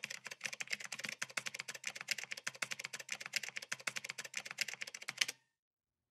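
Rapid typing sound effect: a dense run of sharp keystroke clicks, many a second, that stops abruptly about five seconds in.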